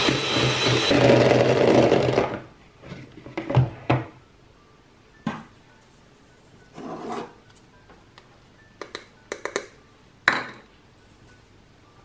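Electric hand mixer whipping egg white in a plastic bowl; it stops suddenly a little over two seconds in. Then scattered knocks and clicks, the loudest about ten seconds in, as the mixer is set down on the counter and a metal sieve is handled over the bowl.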